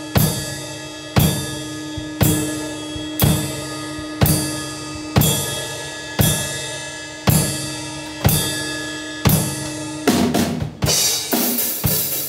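Pearl drum kit played with sticks: big accented hits, bass drum with cymbal, struck about once a second and left to ring out. About ten seconds in, the playing breaks into a faster, busier beat.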